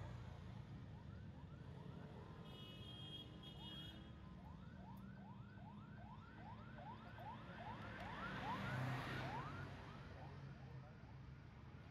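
Emergency vehicle siren in a fast yelp: quick rising sweeps, several a second, over road traffic noise. It grows louder as the vehicle approaches and passes, loudest about nine seconds in.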